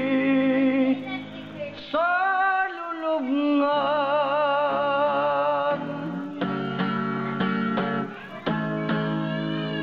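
Background music: a slow ballad with guitar chords and a sung vocal line, with a long note sung with vibrato between about two and six seconds in.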